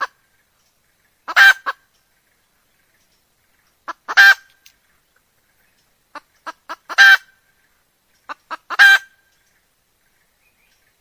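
Red junglefowl hen calling: four calls a few seconds apart, each a longer cackling note, most of them led by one or a few short clucks, then it falls silent near the end. This is the hen's call in breeding condition, which brings males in.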